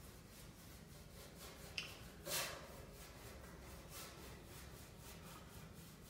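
A paintbrush stroking water-based enamel onto the sheet-metal edge of a washing-machine cabinet: a quick series of faint swishing strokes, with a small click and a louder rustle about two seconds in.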